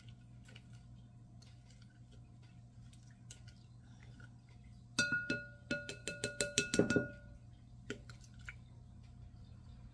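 A spoon stirring yeast and sugar into warm water in a glass measuring bowl: faint scraping ticks, then about five seconds in a quick run of about ten ringing clinks against the glass over two seconds, and two more a little later. A steady low hum sits underneath.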